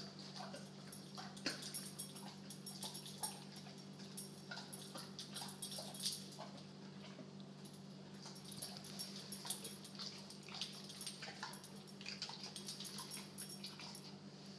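An American bulldog's faint mouth noises: a scatter of small wet clicks and smacks as he stands with his head down. A steady low electrical hum runs underneath.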